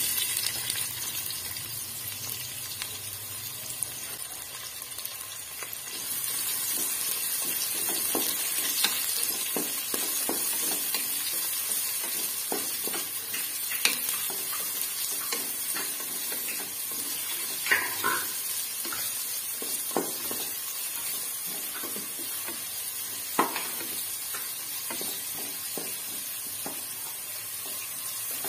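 Sliced onions sizzling in hot oil in an aluminium pressure cooker, getting a little louder about six seconds in. A spatula stirs them, scraping and knocking sharply against the pot a few times.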